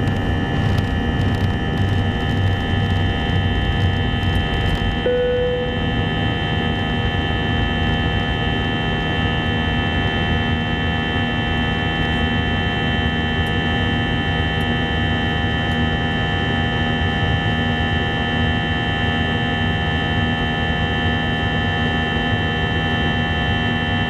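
Airbus A321's CFM56-5B turbofan at takeoff thrust in the initial climb, heard inside the cabin beside the engine: a steady buzzsaw drone of many stacked tones, the sound of the fan blade tips running supersonic. A low rumble runs under it for the first five seconds, and a brief tone sounds about five seconds in.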